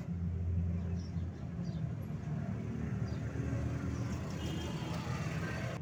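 An engine running at idle: a steady low drone that turns rougher about a second in.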